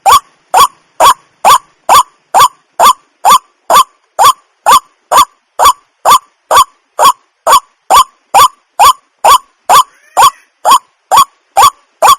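White-breasted waterhen's 'wak' call repeated in a steady, evenly spaced series of about two calls a second, each call short and rising slightly in pitch.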